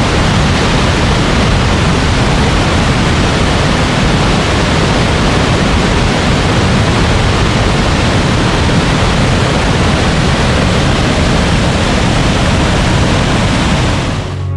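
Steady rushing of a tall mountain waterfall's falling water heard close by, loud and even, breaking off right at the end.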